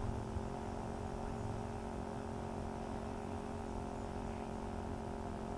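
A steady mechanical drone made of several even tones, over a low rough rumble, unchanging throughout.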